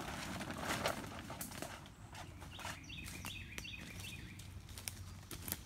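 A bird calls a quick run of about five short falling chirps in the middle, over light rustling and scattered sharp clicks.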